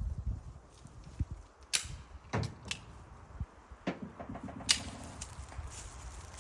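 A handful of short, sharp clicks and knocks, about five spread over a few seconds, over a low outdoor rumble.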